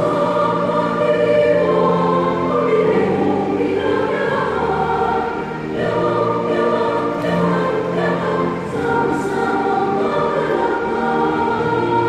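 Many voices singing a hymn together, a church choir and congregation holding long sustained notes that change every second or so.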